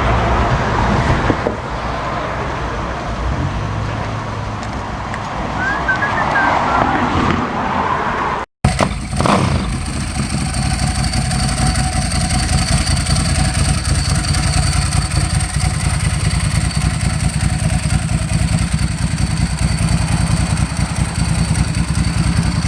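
Motorcycle engine running steadily, following a sudden break about a third of the way in. Before the break there is mixed outdoor noise with a few brief chirps.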